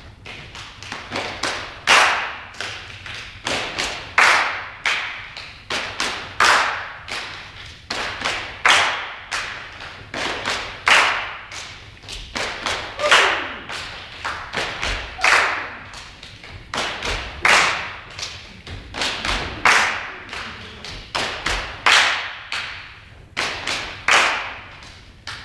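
A group clapping hands and stomping feet together in a repeating body-percussion rhythm, a strong accent about every two seconds with lighter claps between, echoing in a large sports hall. Deeper foot thuds come through more in the second half.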